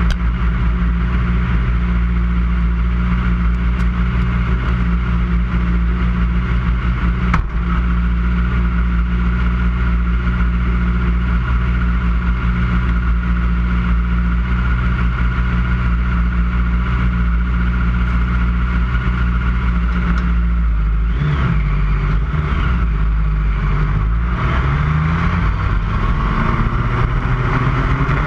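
Lightning sprint race car engine running steadily at an even pitch, then its engine note changes about three-quarters of the way through, with rising and falling revs.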